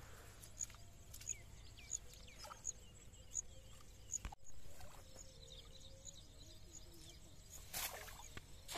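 A cast net swishing through the air and then landing on the water with a splash near the end. Underneath, faint outdoor ambience with a small high chirp repeating about every two-thirds of a second.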